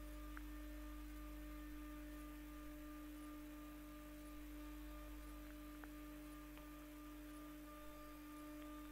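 Electrical hum from a 1996 Tube Stock train's GTO inverter equipment, picked up by a telephone pickup coil: one steady tone with fainter overtones and a low hum beneath, unchanging in pitch, with a few faint clicks. The inverter is not sweeping through its modes, as it would when the train starts or brakes.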